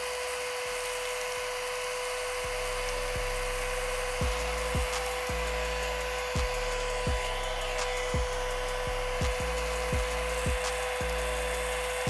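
Homemade 12 V DC-motor handheld vacuum cleaner running with a steady whine and hiss as its nozzle sucks up sand, dust and small pebbles. From about two to four seconds in, a regular low thud comes roughly every half second.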